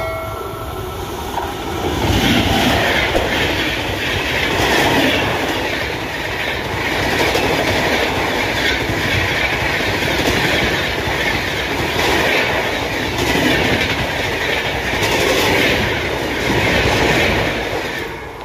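Electric-hauled express train with LHB coaches passing close at speed: a steady rushing din with clickety-clack of wheels over rail joints. It builds about two seconds in and eases near the end as the last coaches go by. The tail of the locomotive's horn blast trails off at the very start.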